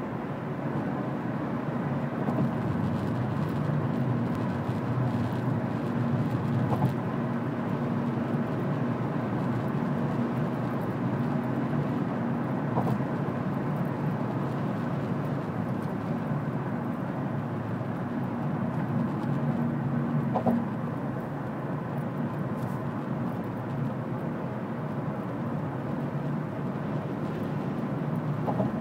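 Steady road and engine noise inside a car's cabin while driving on a highway: a constant rumble with a low hum.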